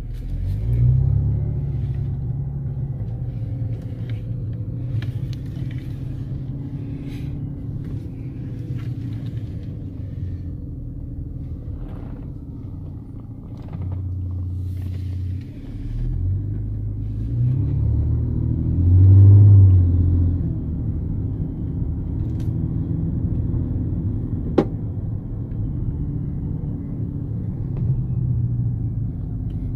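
Engine and road rumble of a convoy of Mercedes-Benz W124 E500 sedans with V8 engines, heard from a car driving alongside. The engines swell in revs about a second in, and again a little after the middle, where they are loudest. A single sharp click comes about five seconds before the end.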